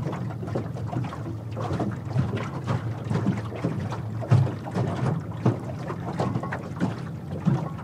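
Small waves slapping irregularly against the hull of a jon boat, with wind buffeting the microphone.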